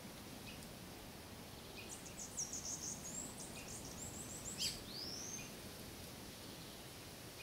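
A small bird sings a quick run of high notes for about three seconds, ending with a sharp note and a rising whistle, over a steady background hiss.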